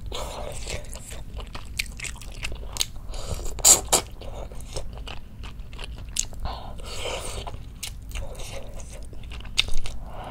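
A person chewing and biting tender braised chicken close to the microphone: wet mouth sounds with many sharp clicks, loudest about four seconds in and again near the end.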